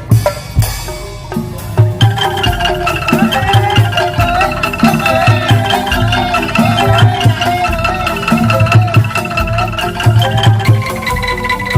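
Angklung ensemble playing: shaken bamboo angklung tones carrying a melody over a steady drum beat, the melody coming in about two seconds in after a brief noisy wash over the drums.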